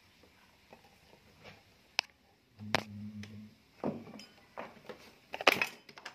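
A 21-inch LG Pearl Black CRT television being switched on at the mains: a click, then a clack followed by a low mains buzz for about a second from the degaussing coil, then several scattered clicks and knocks of handling.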